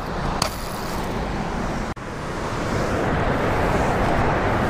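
Steady rush of turbulent tailwater churning below a dam, with a brief break about two seconds in, after which it is slightly louder.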